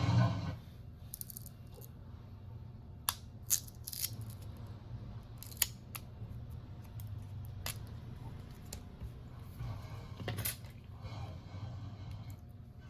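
Scattered sharp clicks and ticks of small tools and parts being handled during a smartphone battery and charging-port repair, about seven in all, over a low steady hum.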